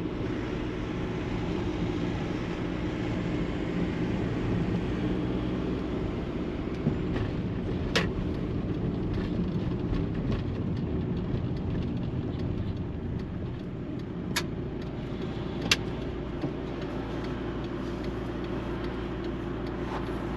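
A small van driving at steady speed, its engine and road noise running evenly, with a few short sharp knocks or rattles along the way.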